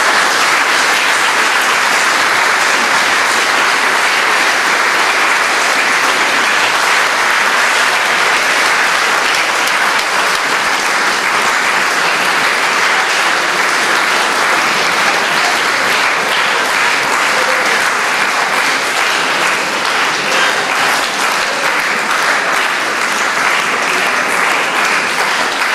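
Concert audience applauding, a dense, steady clapping that greets the end of a jazz piano piece.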